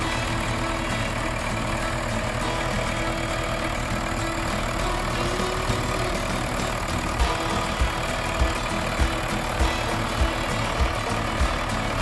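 An engine running steadily. From about halfway through, regular low thumps come in, a little under two a second.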